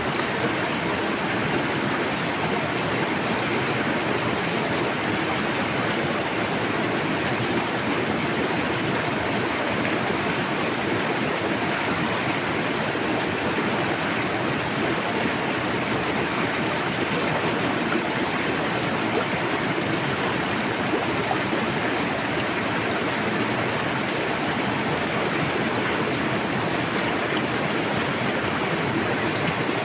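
A fast river rushing steadily, an unbroken wash of flowing water.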